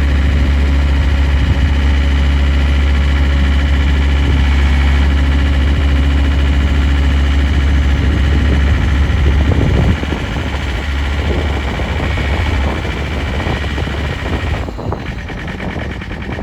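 John Deere 332 skid steer's diesel engine running steadily, then dropping to a lower, rougher running about ten seconds in.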